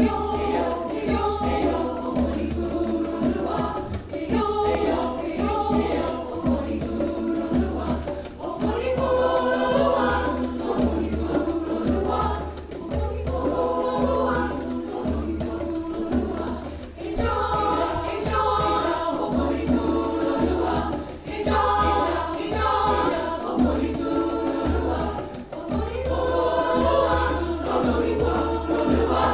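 Community choir singing in several voice parts, phrase after phrase, over a pulsing low beat.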